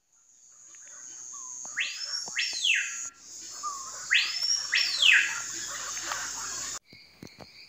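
Bird calls over a steady high-pitched insect drone: two pairs of loud whistles, each sweeping sharply up and falling back down. The sound cuts off abruptly twice, as edited.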